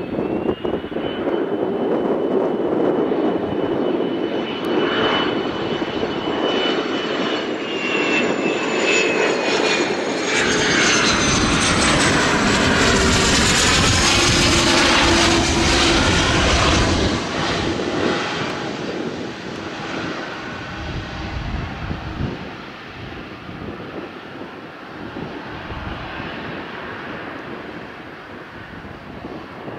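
Embraer Phenom 300 business jet on final approach passing overhead, its twin Pratt & Whitney Canada PW535E turbofans whining. The high whine drops in pitch as the jet goes by, the noise is loudest about halfway through, then fades as it lands and moves away down the runway.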